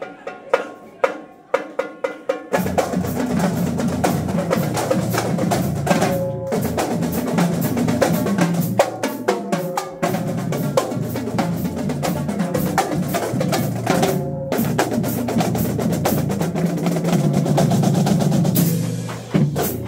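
Marching drumline of Pearl tenor drums (quads) and bass drums playing a cadence. It opens with single separated strokes on the pitched tenor drums, then about two and a half seconds in the full line comes in with a dense, continuous beat.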